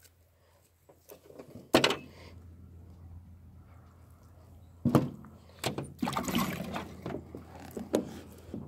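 A wet, scalded rooster being hand-plucked and shifted on a glass tabletop: several sharp knocks, the loudest about two and five seconds in, and a stretch of rustling about six seconds in.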